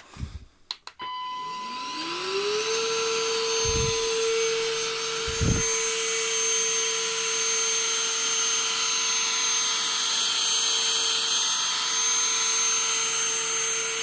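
SilverCrest Shaz 22.2 C3 cordless stick vacuum starting up in eco mode: the motor spins up with a rising whine over a second or two, then runs steady with a high-pitched whine on top. Two short low thumps come a few seconds in.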